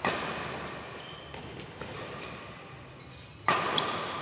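Two sharp badminton racket strikes on the shuttlecock, one at the start and a louder one about three and a half seconds in, each ringing on in the echo of a large hall.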